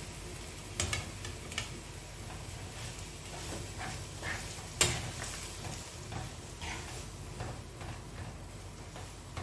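Chicken pieces in masala sizzling in a nonstick frying pan while being stirred with a metal spoon, with scattered taps and scrapes of the spoon against the pan; the sharpest tap comes about five seconds in.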